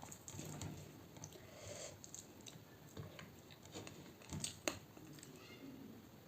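Quiet close-miked chewing of fish curry, with soft wet mouth clicks and smacks and a few sharper ticks about four and a half seconds in.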